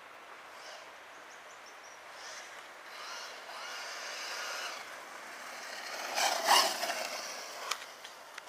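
Ansmann Kryptonite brushless RC truggy driving toward the microphone on a gravel path: the high whine of the brushless motor and the crunch of its tyres grow louder, loudest about six and a half seconds in as it comes close.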